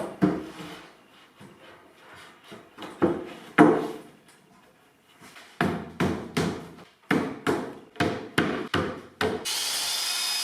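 Hammer blows on plywood. A few single knocks come first, then a quick run of about ten blows at roughly three a second. A steady noise starts suddenly near the end.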